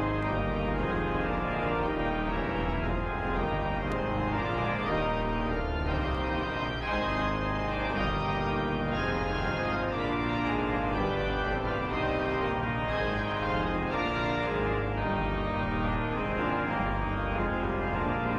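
Church organ playing the postlude at the end of the service: held chords that change every second or so over deep pedal bass notes, steady and loud.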